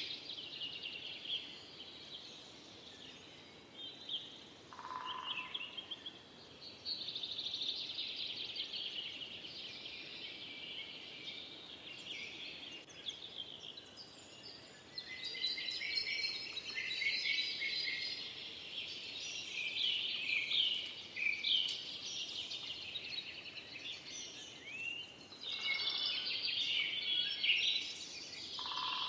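Chorus of songbirds singing, with many overlapping chirps and rapid trills. A lower single note sounds twice, once about five seconds in and again near the end.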